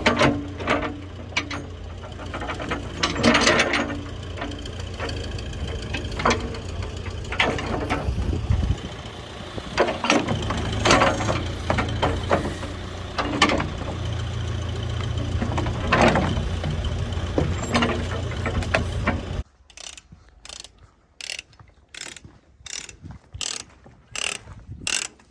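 An engine running steadily with scattered sharp knocks and clanks over it, shut off suddenly about three-quarters of the way through; afterwards a run of evenly spaced clicks, about two a second.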